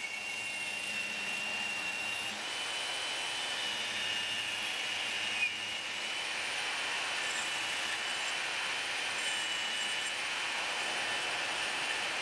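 Band saw running and cutting into the wall of a steel square tube fed by hand: a steady high whine over the hiss of the blade in the metal, with a small click about halfway through.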